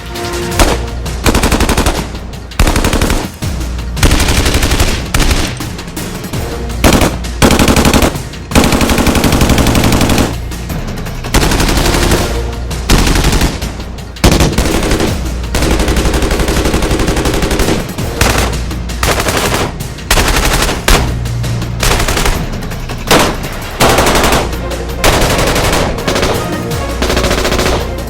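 AR-15/M16 rifle firing: a run of short bursts of rapid automatic fire, one after another, with brief pauses between.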